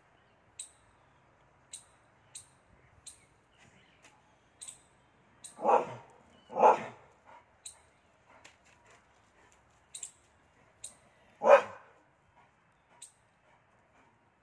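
A dog barking three times: two barks close together midway and one more a few seconds later. Short, faint, high chirps repeat about once a second between the barks.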